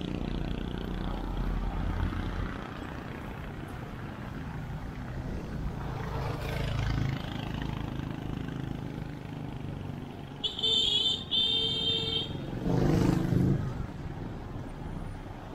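Road and wind noise on a helmet-mounted camera while riding among traffic, with vehicles passing. About ten seconds in, two short high-pitched horn beeps, then a vehicle passes close by.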